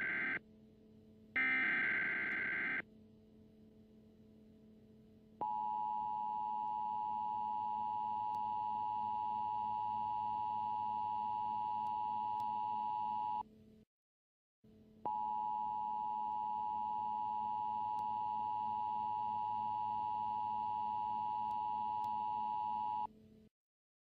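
Emergency Alert System broadcast over a car radio, announcing a winter storm warning. It opens with two short, harsh bursts of the SAME header data tones. Then comes the steady two-tone EAS attention signal, held about eight seconds, cutting out for about a second, and held about eight seconds more.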